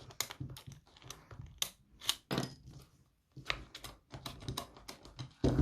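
Abus Granit X-Plus 54 U-lock being locked back up: a run of irregular sharp metallic clicks and clunks as the shackle is seated in the lock body and the disc mechanism is turned, with a louder clunk near the end.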